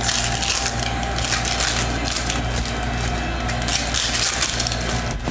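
Basketball trading cards being handled and flipped through by hand close to the microphone: an irregular papery rustling and sliding that swells and fades several times, over a steady low hum.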